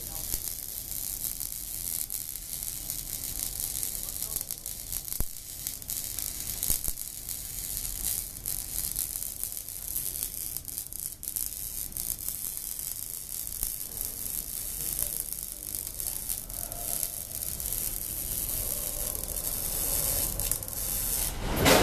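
Arc welding in progress: a steady, dense crackling sizzle of the welding arc as a bead is laid.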